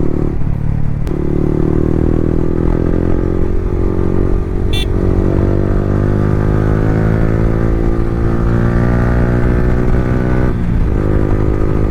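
Yamaha R15 V3's single-cylinder engine through an Akrapovic R9 exhaust with the dB killer removed, pulling under acceleration, its pitch climbing steadily. There is a short dip about four seconds in, and the engine note drops off near the end.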